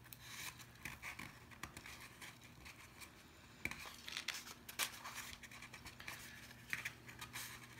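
Card stock box flaps being pinched and folded shut by hand: faint, irregular rustling and scraping of paper with small clicks and taps.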